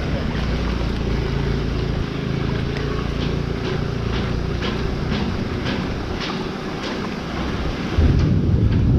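Outdoor street noise with a vehicle going by, wind buffeting a GoPro's microphone in low rumbles that jump up near the end, and a run of light regular ticks in the middle.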